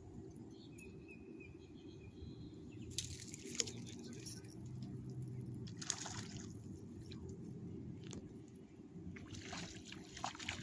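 Hooked shellcracker (redear sunfish) splashing and thrashing at the water surface as it is reeled in. The splashes come in bursts: about three seconds in, again around six seconds, and a longer run of splashing near the end.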